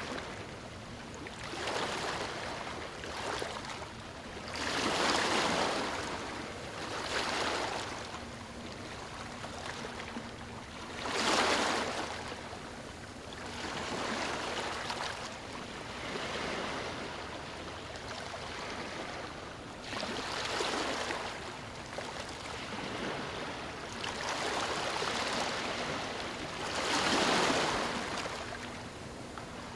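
Ocean waves breaking and washing up a beach, swelling and falling away every few seconds, with the biggest breakers about five, eleven and twenty-seven seconds in.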